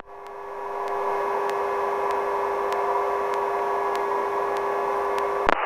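Sikorsky helicopter holding a hover with a slung load, its turbine and transmission heard through the intercom audio as a steady whine over a rushing noise. The sound swells up during the first second after a radio call, then holds steady.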